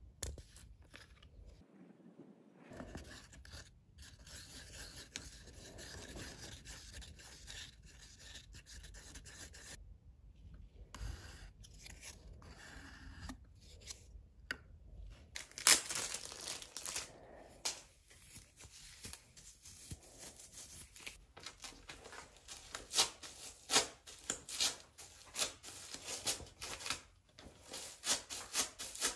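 Rubbing and scraping handling sounds of hand resin work, turning into a run of short, sharp strokes from about halfway on, with one louder knock just past the middle. Near the end a chip brush is scrubbing resin into fiberglass cloth laid over a surfboard fin box.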